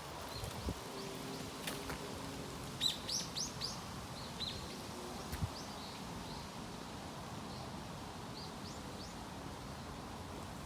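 Small birds chirping over a steady hiss of wind: a quick run of chirps about three seconds in, then scattered single calls.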